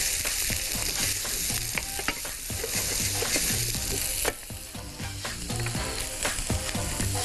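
Beef chunks with onion, carrot and chillies sizzling in a hot frying pan while a wooden spatula stirs them, with many small clicks and scrapes of the spatula against the pan. The sizzle drops suddenly about four seconds in.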